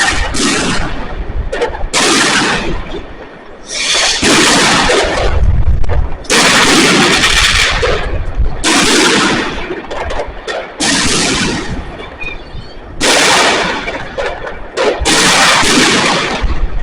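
Consumer firework battery firing: a loud burst about every two seconds, each a dense rush of bangs and crackle lasting about a second, a few with a deep boom.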